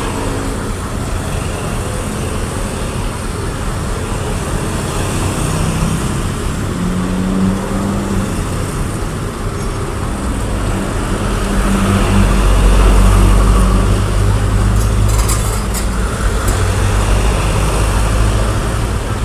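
Heavy diesel engine running, its deep rumble swelling loudest about two-thirds of the way through, with a few short clicks soon after.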